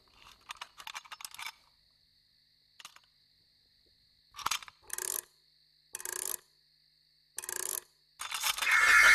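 Cartoon sound effects of a broken clockwork toy nightingale being examined and taken apart: quick runs of small metallic clicks and clinks, a few short rattles, then a loud clattering whirr of loose metal parts near the end. A faint steady high tone runs underneath.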